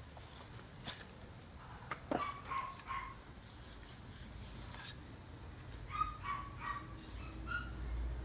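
Bird calls: short pitched chirps in two clusters, around two to three seconds in and again around six to seven seconds, with a few faint clicks. A faint steady high tone runs underneath.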